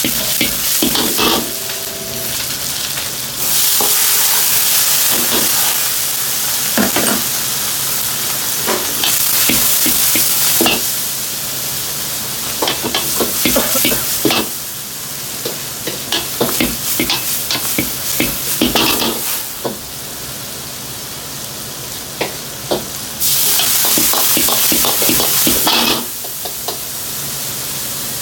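Food sizzling hard in a hot iron wok over a high gas flame as it is stir-fried and tossed, with loud bursts of hissing that come and go. Metal clinks and knocks of the ladle and wok run through it over a steady low hum.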